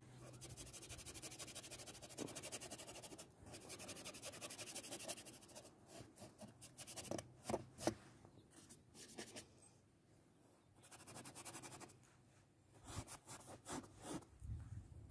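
Bristle paintbrush scrubbing oil paint onto a painting board: faint, fast scratching in two runs over the first five seconds, then scattered light strokes and taps with short pauses.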